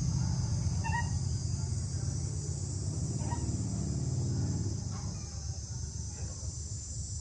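Steady high insect drone over a louder low rumble, with a few faint short chirps about one and three seconds in.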